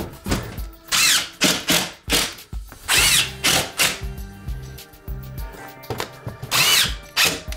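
Cordless drill driving screws into drywall in several short bursts, its motor whine rising and falling with each screw.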